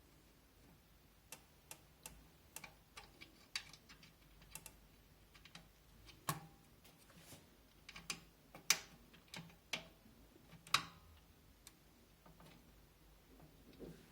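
Scattered light clicks and taps, irregular and spaced apart, as a case fan and its screws are handled and fitted into a computer case; the sharpest clicks come about 6, 9 and 11 seconds in.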